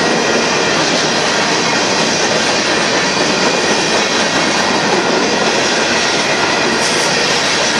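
Union Pacific freight cars, covered hoppers and gondolas, rolling past close by: a loud, steady noise of steel wheels running over the rails.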